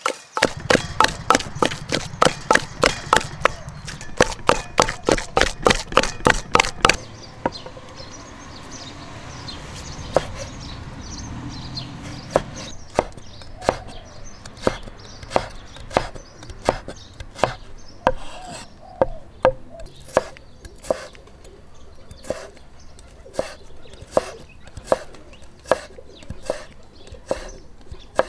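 Repeated wooden food-preparation strikes, like a cleaver or pestle working on wood. They come fast and loud, about four a second, for the first seven seconds, then after a pause resume slower and softer, about one and a half a second.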